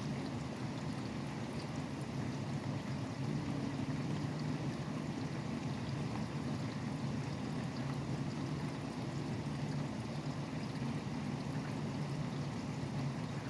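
Steady rain falling, with a low, constant rumble of highway traffic underneath.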